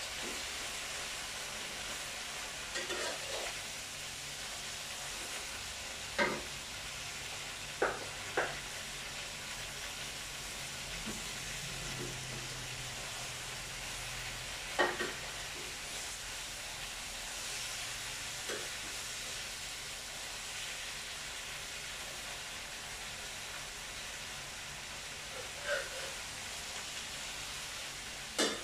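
Turmeric-seasoned tofu frying in hot oil: a steady sizzle, broken by a few short knocks.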